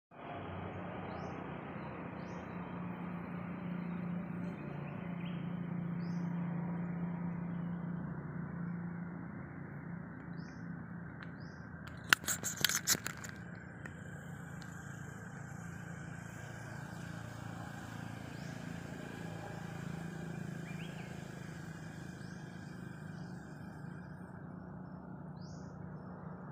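Steady outdoor background rumble with a few faint bird chirps, and a brief cluster of sharp clicks about halfway through.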